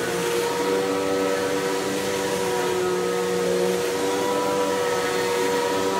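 Tornado CK14/1 upright vacuum cleaner running steadily, its motor giving a continuous whine of several held tones over a rushing airflow.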